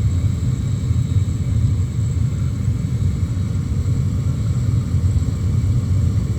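Gas furnace running with a steady low rumble. Its air filter is clogged, which may be overheating the limit switch and making the furnace cut off and relight.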